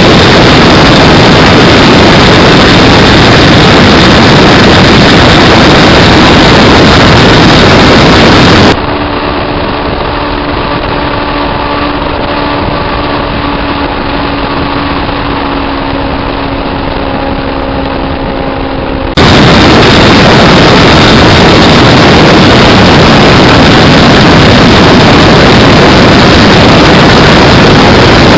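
Parallel-twin motorcycle engine running right at the microphone, so loud it distorts, with no clear pitch. For about ten seconds in the middle it cuts to a quieter, cleaner recording of a motorcycle engine idling steadily on an even tone, then cuts back to the loud, distorted running.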